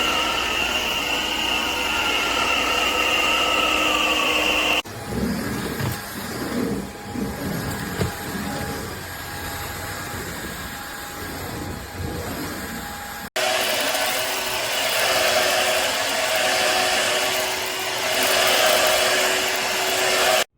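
Cordless stick vacuum motor running, in three cut-together stretches: a steady high whine first, then a quieter, rougher stretch, then a louder rushing run.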